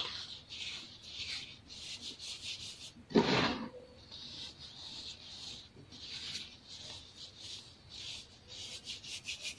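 Baking soda being crumbled and rubbed between the fingers: a dry, crunchy rustle in quick repeated strokes, with one louder crunch about three seconds in.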